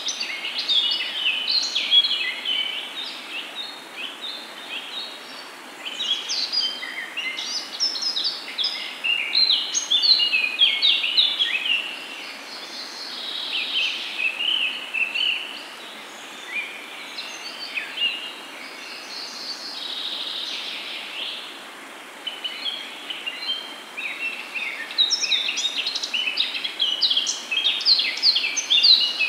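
Birds chirping: a dense run of quick, high chirps and twitters that goes on throughout, easing off for a few quieter stretches.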